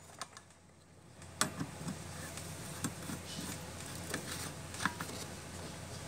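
A few light clicks and taps from hands handling the wires and metal terminal plates inside an electric water heater's thermostat compartment, the sharpest about one and a half seconds in and again near five seconds.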